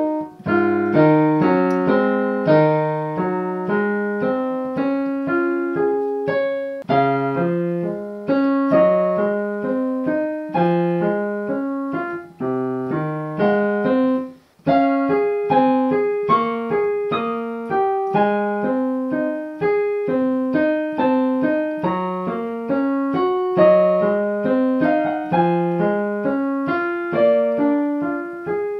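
Kawai piano played with both hands: a continuous run of notes across the middle and lower registers, each struck and then fading, with a brief break about halfway through.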